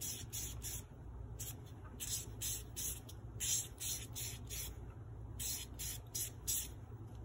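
A nail buffer block rubbed back and forth over bare natural fingernails, in quick scratchy strokes about three a second with short pauses between runs.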